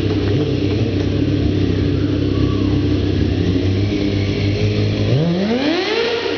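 Kawasaki sport bike engine running steadily during stunt riding, then revving up sharply about five seconds in, its pitch climbing for about a second as the bike accelerates.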